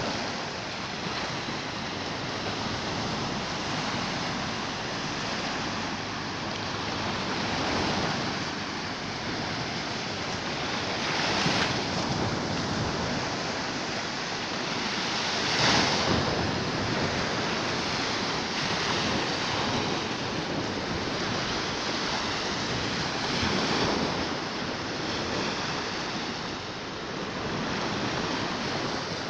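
Small Baltic Sea waves breaking and washing up a sandy beach: a steady wash of surf that swells with each breaking wave, the loudest about halfway through.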